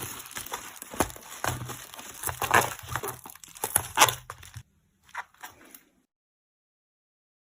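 Close-up crinkling and rustling of plastic packaging being handled, with sharp little clicks and taps, as photocards are packed. It stops about two-thirds of the way in, with two faint brief sounds, then dead silence.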